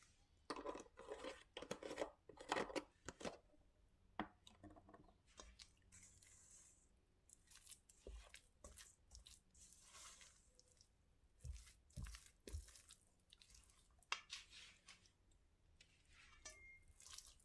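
Faint stirring of a thick oat-flour banana bread batter in a mixing bowl: irregular soft strokes, busiest in the first three seconds, then sparser.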